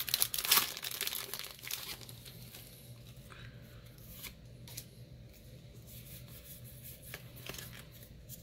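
Foil wrapper of a Pokémon trading-card booster pack being torn open and crinkled, a pack that is not tearing cleanly. The crackling is loudest in the first couple of seconds, then gives way to a few light clicks and taps as the stack of cards is handled.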